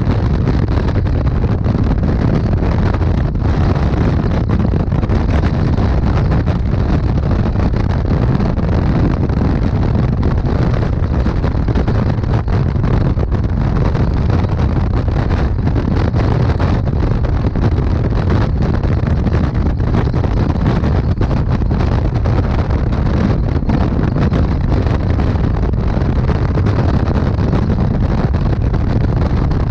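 Steady wind rush buffeting the microphone of a Honda Gold Wing touring motorcycle cruising at highway speed, with the bike's running and road noise underneath. It is loud and even throughout, with no distinct events.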